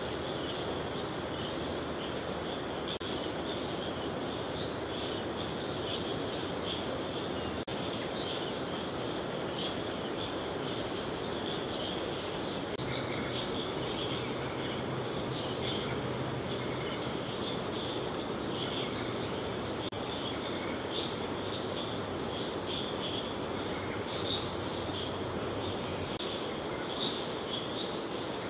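Steady chorus of crickets and other insects: a continuous high trill with pulsing chirps just beneath it, over a constant even hiss. A faint low hum comes in about halfway through.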